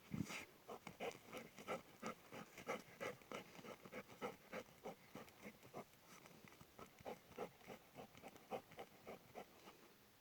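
A dog making faint, quick, repeated short sounds, about three a second.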